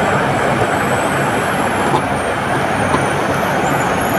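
Steady rushing background noise with no speech, with faint thin high tones in the second half.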